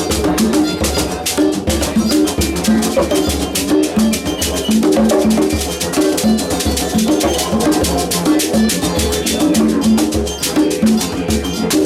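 Ensemble of kora, didgeridoo, congas and shekere playing a steady, rhythmic groove: a pulsing low didgeridoo drone under repeated plucked kora notes, with fast hand-drum and shaker strokes throughout.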